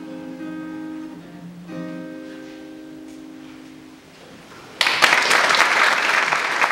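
Acoustic guitar's closing chords ringing out and fading, with one last strum about two seconds in. A little before the end an audience breaks into loud applause.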